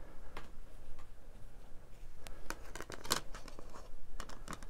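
Clear plastic Blu-ray case being handled: scattered light clicks and soft rustling as hands move over the case and the disc in its tray.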